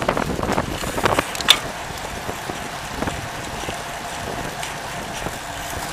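Wind buffeting the microphone of a camera mounted on a moving road bicycle, over tyre and road rumble. A few sharp clicks or knocks come in the first second and a half, the loudest about 1.5 s in, and then the noise runs steady with a faint even hum.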